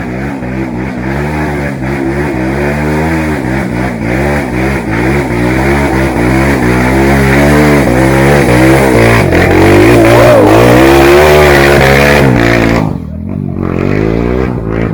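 Trail dirt bike engine revving up and down over and over, its pitch rising and falling with the throttle. It is loudest over the later middle stretch, then eases off sharply shortly before the end.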